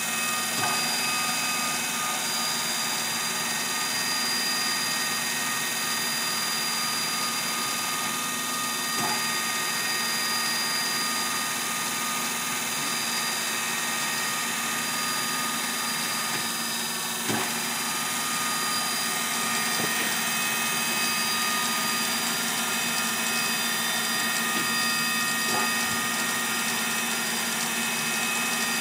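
Sharp 8x20 automatic cylindrical grinder running its internal grind cycle. It makes a steady machine whine with several high steady tones over a hiss, with a few faint clicks along the way.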